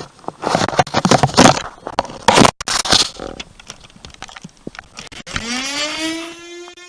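A run of loud clattering and scraping hits in the first half, then a pitched tone that rises about five seconds in and settles into a steady held note.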